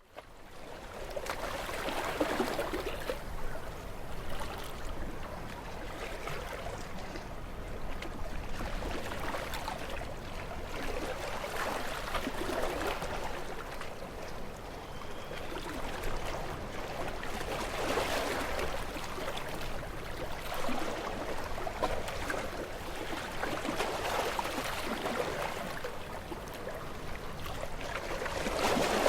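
Sea waves washing against rocks: a continuous rush of surf that swells and ebbs every few seconds, fading in at the start.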